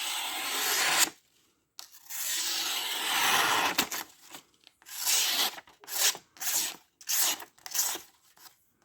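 A freshly sharpened Sitivien ST147 knife (14C28N steel) slicing through paper. There are two long hissing slices, the second about two seconds, then a quicker run of short cuts.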